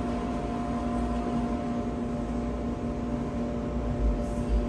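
Steady machine hum with a low rumble, holding two even tones throughout, like a restaurant's ventilation or refrigeration running.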